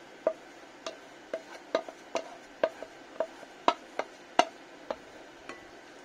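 About a dozen sharp, irregular taps and knocks of a wooden spoon against ceramic and glass bowls, each with a short ringing note, as beaten egg is scraped out of one bowl into another.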